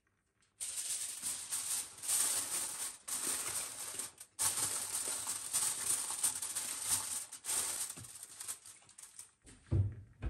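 Aluminium foil crinkling and rustling as it is handled and pressed down over a glass baking dish, with two brief pauses. A dull thump near the end as the oven door is opened.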